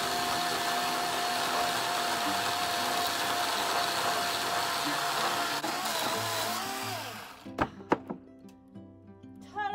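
Electric chainsaw cutting through a wooden fence post, a loud steady motor whine with chain noise; the motor winds down about seven seconds in, followed by two sharp knocks.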